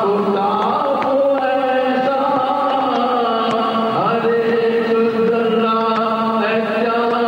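A man reciting a naat, singing long, drawn-out notes with a slow slide in pitch about four seconds in, through a microphone and sound system.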